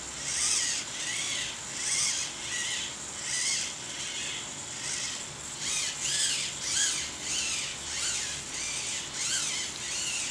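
Servos of an XAircraft TPS 130 two-axis stabilized GoPro gimbal whining in short bursts, about one every 0.7 seconds, each rising then falling in pitch. The servos are driving the mount to correct pitch and roll as the quadcopter is tilted by hand.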